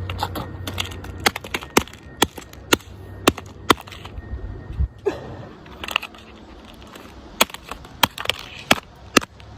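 Hammer blows striking an iPhone 7, a long run of sharp, irregular knocks about one or two a second as the phone is smashed.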